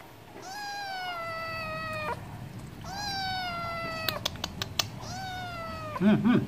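A stray tabby cat gives three long, drawn-out meows, each sliding gently down in pitch, with pauses between them. A few sharp clicks come after the second meow, and a short, louder, low-pitched sound comes near the end.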